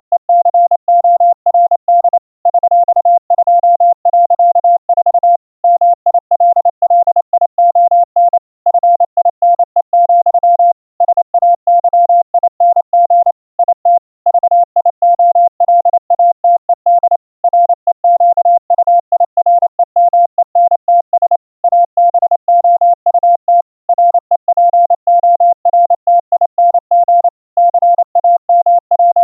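Morse code from a CWCom news feed at about 30 words per minute: a single steady tone keyed rapidly on and off in dits and dahs.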